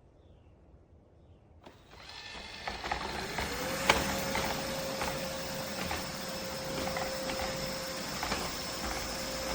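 Narwal Freo X Plus robot vacuum's motor starting up: a whine rises in pitch and settles into a steady running hum about two seconds after it starts, with scattered clicks and knocks over it.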